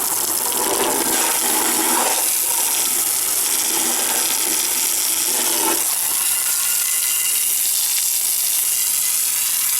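Garden hose spraying water onto a CRT TV's cabinet and chassis, a steady hiss. For the first six seconds or so the spray splatters more heavily on the surfaces, then settles back to the even hiss.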